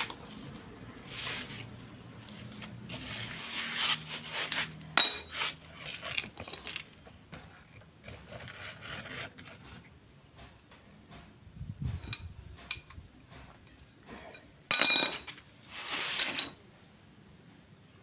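Metal hand tools and small engine parts clinking, tapping and scraping as parts are worked loose from a motorcycle engine's open right side. Near the end come two louder, harsh scraping rattles, about half a second each.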